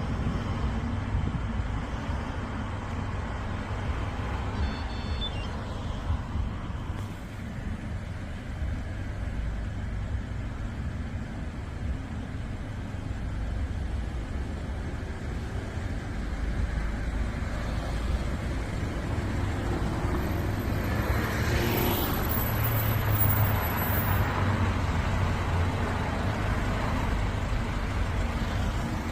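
Road traffic heard from a bicycle riding along a public road, with a steady low rumble of wind and road noise. A motor vehicle comes up and passes close about three quarters of the way through.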